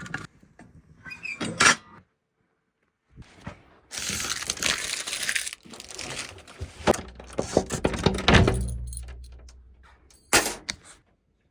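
A run of knocks, clatter and rustling, then a heavy thud about eight seconds in with a low rumble that dies away, and a last sharp knock near the end.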